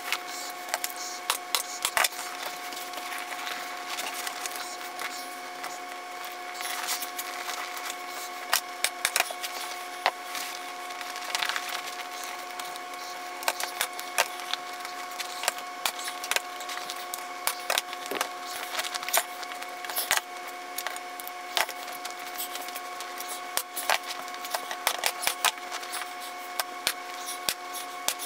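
Staple gun driving staples through a vinyl seat cover into a plywood seat board: a string of sharp snaps at irregular intervals, some in quick runs of several, over a steady background hum.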